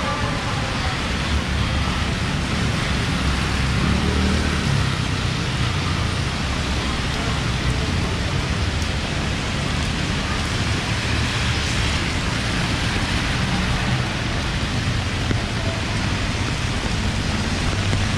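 Heavy rain falling steadily, a dense even hiss, over the low rumble of passing road traffic that swells a few seconds in.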